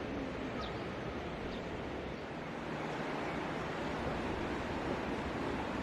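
Mountain stream water rushing steadily over rocks, with a couple of faint, short high chirps in the first second or two.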